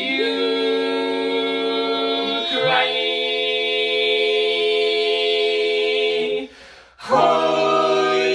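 Barbershop quartet of four men's voices singing a tag a cappella in close harmony, holding long sustained chords on drawn-out vowels ("you…", "cry…"). The chord changes about two and a half seconds in, breaks off briefly near six and a half seconds, then a loud final chord comes in near the end.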